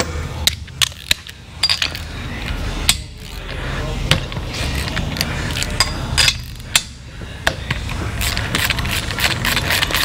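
Hand ratchet clicking and metal tools clinking as spark plugs are taken out of a motorcycle V-twin's cylinder heads: scattered clinks and knocks at first, then quick, steady ratchet clicking near the end.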